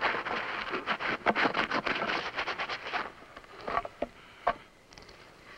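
Dry brush and dirt crackling and scraping as they are cleared off a stone grave marker by hand: dense rustling with many small snaps for about three seconds, then a few separate clicks.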